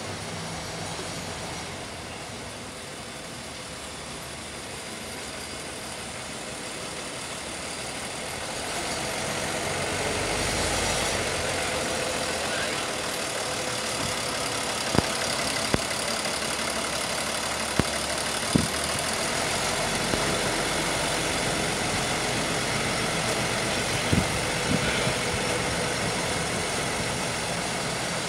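Small diesel shunting locomotive running as it slowly moves a string of passenger coaches. The engine sound grows louder partway through, and a few sharp clacks in pairs come from the wheels rolling over rail joints.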